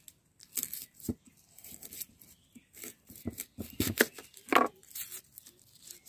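An onion being cut by hand: a series of irregular, crisp cutting and rasping strokes.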